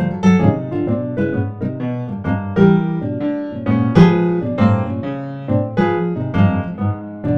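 Solo piano music, a steady run of notes several a second.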